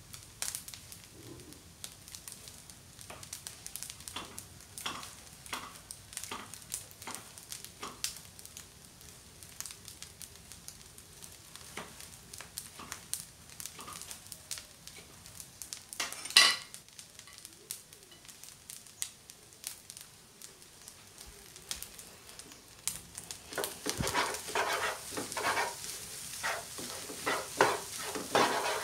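Fried rice sizzling in a frying pan on the stove, with scattered crackles and one louder sharp click about halfway through. From a few seconds before the end a wooden spatula stirs and scrapes the rice around the pan, growing louder.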